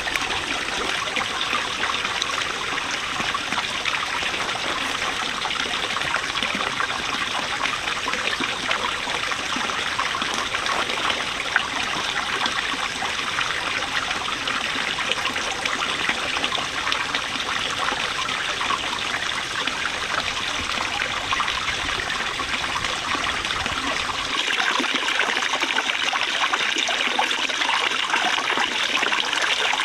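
Running water, a steady trickling and splashing like a stream. About 24 seconds in, the deep rumble drops away and the water sounds brighter and splashier.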